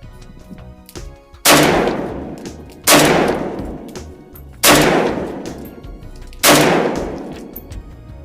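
Four semi-automatic rifle shots from a Zastava O-PAP AK-pattern rifle in 7.62x39, fired at a steady pace about one and a half to two seconds apart. Each shot is a loud crack that rings out briefly before the next.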